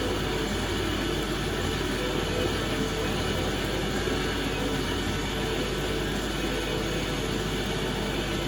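Colchester Master lathe running steadily with a faint whine, while a boring tool is eased slowly through the bearing bore of an anodised billet wheel hub.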